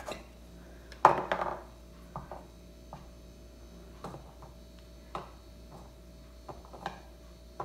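Scattered light taps and knocks of board-game pieces being handled: squirrel-shaped tongs picking an acorn out of the cardboard tree-shaped tray and setting it on a stump-shaped log. One louder knock about a second in.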